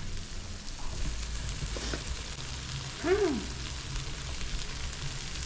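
Cheesy chicken quesadilla filling frying and sizzling in a pan as it is stirred, a steady hiss. About three seconds in, a person makes a short rising-and-falling voiced sound.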